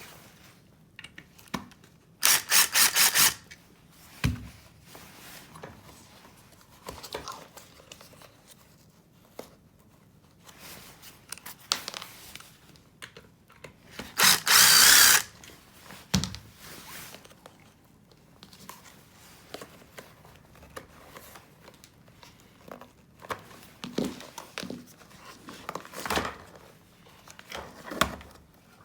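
Handheld power drill running in two short bursts: the first, about two seconds in, pulses on and off; the second, about halfway through, runs for about a second. Scattered small clicks and knocks are heard between them.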